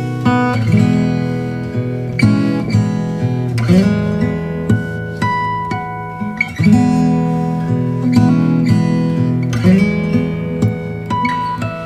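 Background music: an acoustic guitar playing strummed chords and picked notes.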